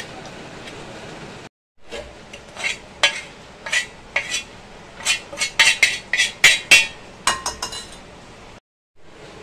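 A steel spoon scraping and clinking against a flat iron pan and a bowl as dry roasted flour is stirred and then scraped off the pan. A run of sharp clinks and scrapes, quickest and loudest in the middle.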